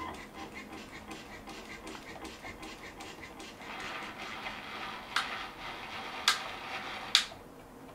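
Motors of a 3D-printed robot arm whirring and ticking as the arm moves. The whirring swells about halfway through, and three sharp clicks come in the last few seconds, the last the loudest.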